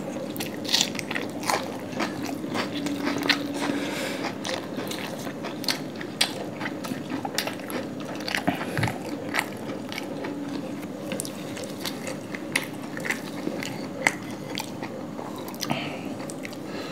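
Close-up eating sounds of two people eating flaky paratha and chicken curry by hand: chewing and mouth noises, with many short sharp clicks scattered throughout.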